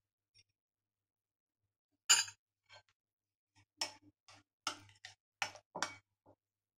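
Metal spoon and glass and ceramic dishes clinking and tapping: one sharp clink about two seconds in, then a quick string of lighter taps and knocks.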